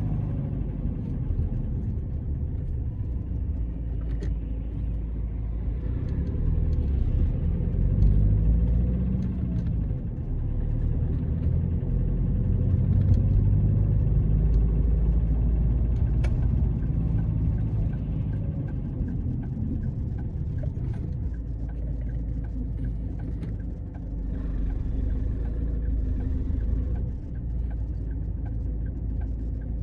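A car driving, heard from inside: a steady low rumble of engine and road noise, with the engine's pitch rising and falling gently now and then. A faint regular ticking joins from about halfway through.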